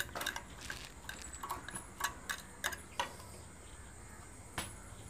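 Scattered light clicks and taps as a tool and hands handle the metal parts of an overlock sewing machine, irregular and spaced, with a quieter gap near the end.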